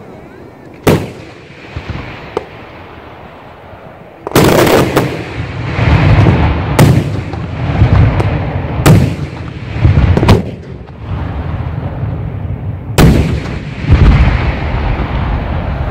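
Aerial fireworks shells bursting: one sharp bang about a second in, then about five heavy booms a couple of seconds apart from about four seconds on, each trailing off in a long rolling echo.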